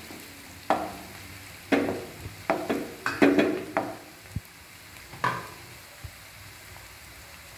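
Wooden spatula stirring and scraping sliced onions in a nonstick kadai in a few quick strokes, over a faint sizzle of the onions sautéing in oil. The stirring stops about five seconds in, leaving only the soft sizzle.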